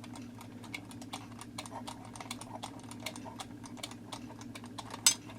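Alarm spring of a Gabriel wind-up alarm clock being wound by its key: a run of small ratchet clicks, with a sharper, louder click about five seconds in.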